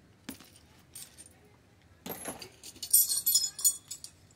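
Small steel hand tools, a set of pin punches, clinking and jangling together as they are handled, after a few knocks and a rustle. The clinks are dense for about a second, starting past the middle.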